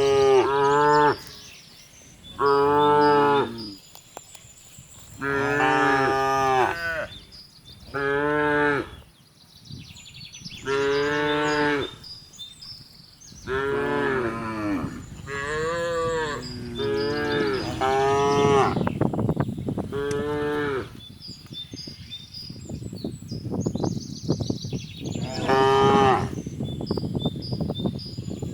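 Cattle mooing again and again, about ten calls of a second or so each, with short gaps between them. From about two-thirds of the way in, a crackling noise runs under the calls.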